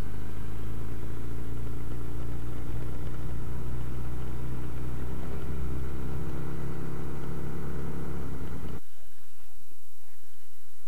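Motorcycle engine running at low, steady revs while riding slowly, heard from the rider's camera. It cuts off suddenly near the end, leaving a low, gusty rumble.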